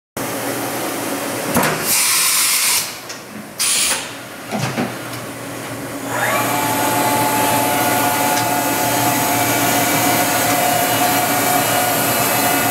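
Matsuura MC-760VX CNC vertical machining center under power: two short hissing bursts, then about six seconds in a motor whine rises in pitch and settles into a steady high whine.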